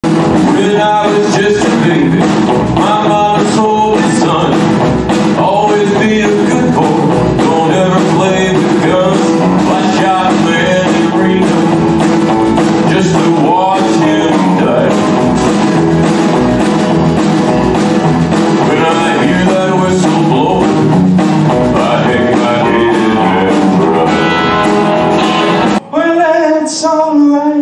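Live rock-and-roll band playing, with a drum kit beat, guitars and a male voice singing. Near the end the music cuts off abruptly and a lone voice with guitar follows.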